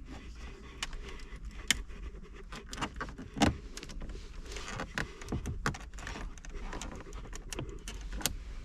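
Ford Focus RS plastic interior trim panel being pried and worked loose by hand: a run of irregular clicks, creaks and rattles of plastic and retaining clips, with two sharper snaps at about one and a half and three and a half seconds in.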